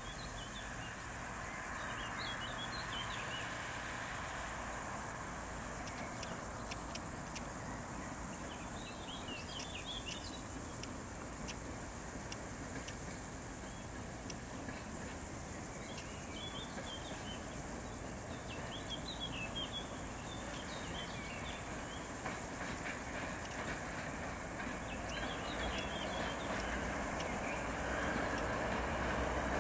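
Steady high-pitched buzz of crickets with birds chirping now and then, over the low rumble of a works train's class 212 diesel-hydraulic locomotives approaching. The engine rumble grows louder near the end.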